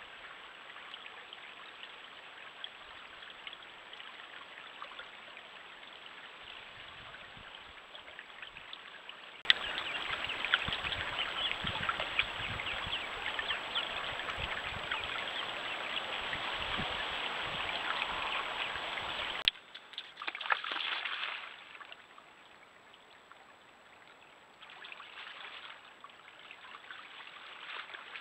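Shallow stream trickling over stones, picked up by a trail camera's microphone: a steady water noise that jumps abruptly louder about a third of the way in and drops back about two-thirds through.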